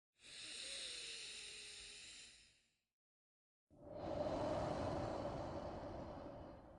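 A person's slow, deep breaths during an elevator-breathing meditation. There are two: a thin, hissing breath of about two and a half seconds, then after a second's pause a longer, louder, fuller one.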